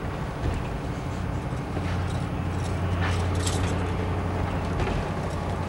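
Tour bus driving, heard from inside the cabin: a steady low engine drone with road noise that grows a little louder about two seconds in, and a few light rattles.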